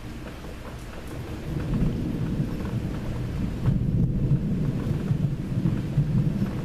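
Thunder rumbling, swelling about a second and a half in and rolling on loudly to the end, over a faint patter of rain.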